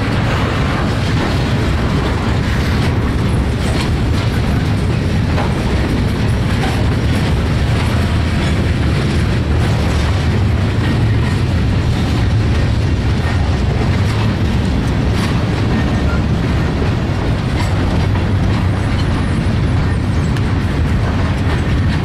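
Freight cars of a passing train rolling by, gondolas loaded with pipe and tank cars: a steady rumble of steel wheels on the rails with occasional clicks as the wheels cross rail joints.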